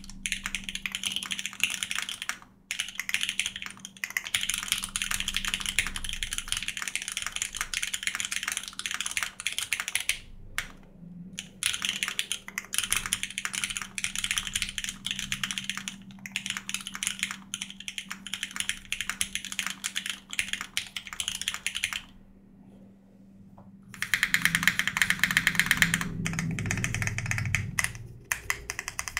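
Steady fast typing on a 60% aluminium mechanical keyboard with Cherry MX Black linear switches, a UHMWPE plate and CRP R4 keycaps. About two-thirds of the way in it stops briefly, then a louder, denser flurry of keystrokes follows as the keys are mashed.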